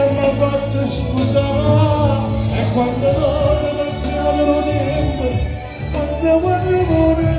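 A male voice sings a Neapolitan neomelodic song into a microphone over band accompaniment with drums, bass and keyboard, at a loud, steady level.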